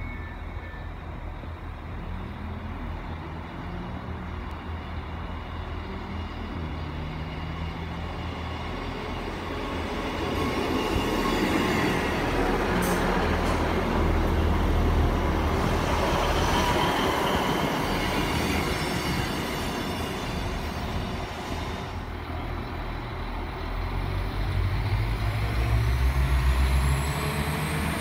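Class 158 diesel multiple unit approaching and rolling slowly past close by, its diesel engines and wheels on the rails growing louder as it comes alongside. About three-quarters of the way through, a Class 195 diesel multiple unit pulls away, its engine note climbing with a rising whine.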